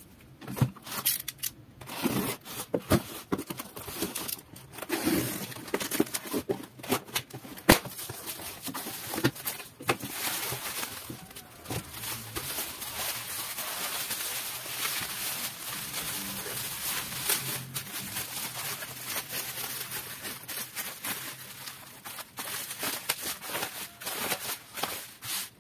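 Plastic bubble wrap crinkling and rustling as it is handled and unwrapped, with sharp snaps and crackles scattered through the first several seconds, then a steadier run of crinkling.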